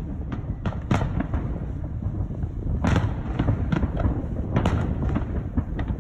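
Aerial firework shells bursting in quick succession: sharp bangs over a continuous low rumble, with the biggest bangs about one, three and four and a half seconds in.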